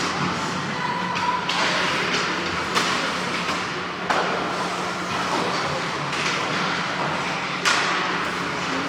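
Ice hockey rink sound during play: a steady wash of skating and arena noise over a low hum, broken by four sharp knocks of puck and sticks, the loudest near the end.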